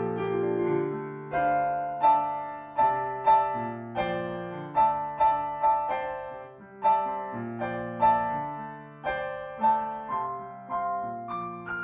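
Solo piano playing a slow, bluesy piece, with chords and single notes struck about every half second to a second and left to ring.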